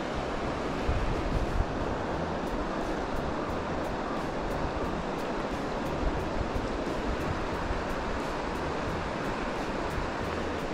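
Steady rush of river current, with gusts of wind buffeting the microphone in uneven low rumbles.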